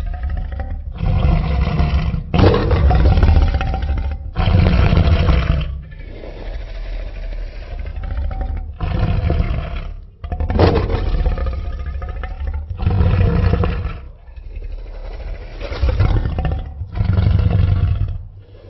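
Tyrannosaurus rex roar sound effects: a run of about eight loud roars of one to two seconds each, heavy in low rumble, with quieter growls between them.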